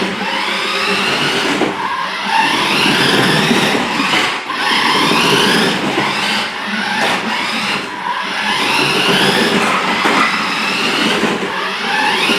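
A 1:10 scale Ford GT remote-control toy car's electric motor whines in repeated bursts of throttle. Each burst rises in pitch, with short breaks between them, as the car is driven.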